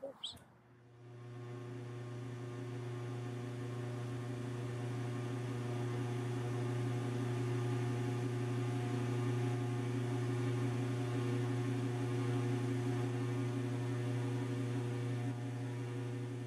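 A steady low hum with a few overtones. It swells in about a second in, holds even and fades near the end.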